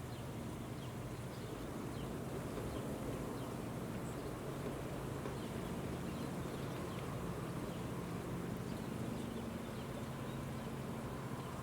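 Steady wind noise with a low, even hum under it and faint, brief high chirps scattered throughout.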